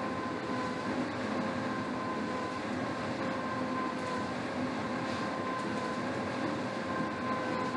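Air rowing machine's fan flywheel whirring steadily as strokes are pulled, with a steady hum running under it.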